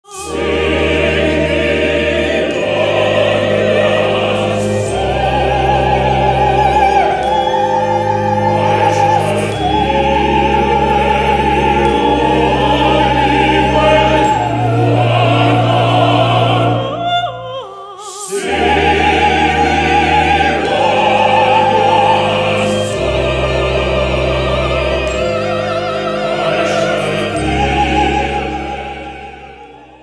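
Operatic singing with wide vibrato over a sustained, slowly changing accompaniment. The music drops away briefly just past halfway, comes back, and fades out at the end.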